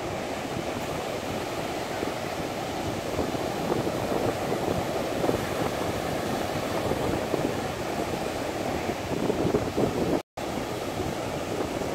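Ocean surf breaking and washing up the beach, a steady rush with wind on the microphone. A momentary gap of silence about ten seconds in.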